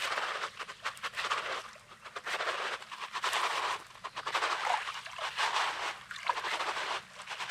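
Footsteps crunching on coarse, pebbly beach sand at a walking pace, about one step a second.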